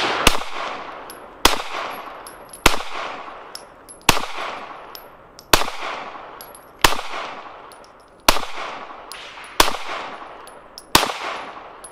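Glock 19 Gen 3 9mm pistol firing nine slow, evenly paced aimed shots, about one every 1.3 to 1.4 seconds. Each sharp report is followed by a long fading echo.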